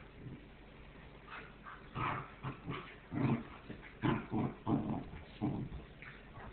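Two goldendoodle puppies wrestling, making a run of short barks and growls, several a second, that starts about a second in.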